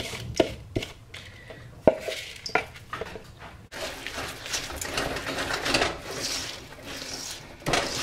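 A few knocks and taps of a spoon and bowl against a stainless steel mixing bowl as ingredients are tipped in. Then, from about four seconds in, a wooden spoon steadily stirs and scrapes a thick oat and cocoa mixture around the steel bowl.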